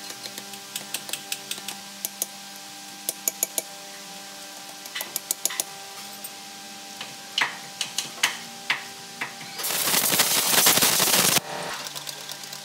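Light metallic taps and clinks of a tool on a steel loader wheel hub and of a tapered roller bearing being handled, in short runs of several quick taps. About ten seconds in, a loud hiss of compressed air lasts about a second and a half and cuts off suddenly. Faint background music with steady tones runs underneath.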